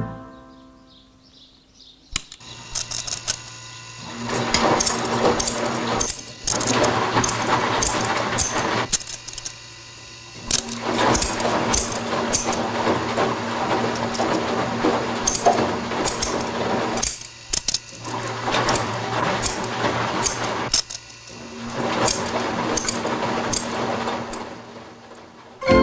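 A homemade machine built from a washing machine, its motor running with a hum and a fast rattling clatter from a rigged bar of scissor blades. It starts about two seconds in and stops and restarts several times in short spells.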